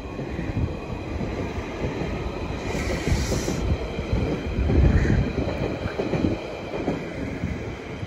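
A passenger train running on the line at the station, with a continuous low rumble of wheels on the rails that is loudest about five seconds in. A short hiss about three seconds in may be wheel squeal or brakes.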